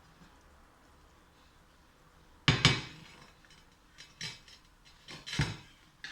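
Pots, pans and utensils clattering: one loud clank about two and a half seconds in, then a few lighter knocks.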